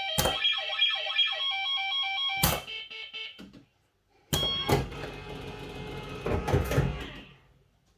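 Bellfruit Firecracker fruit machine sounding its electronic bleeps over the spinning reels, with sharp mechanical clunks. It falls silent for about half a second midway, then starts again with a clunk and more bleeps that fade out near the end.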